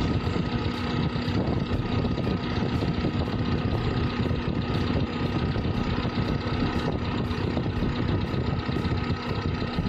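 Daihatsu Taruna EFI engine idling steadily while its idle air-fuel mixture (CO) screw is being turned to find the highest idle speed.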